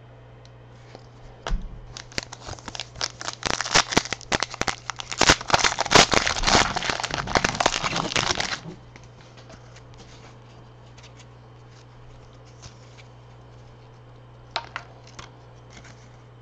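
Trading-card pack wrapper being torn open and crinkled by hand, a dense crackling rustle from about two seconds in to about eight and a half seconds in, followed by a few light clicks near the end.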